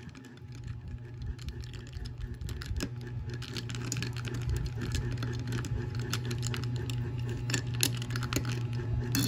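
A metal spoon stirring ice cubes in a glass of iced coffee: irregular clinks of ice and spoon against the glass, over a steady low hum.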